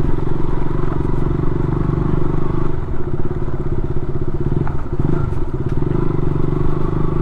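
KTM motorcycle engine running at low speed, with the throttle eased off and opened again about five seconds in, the pitch dipping and rising back.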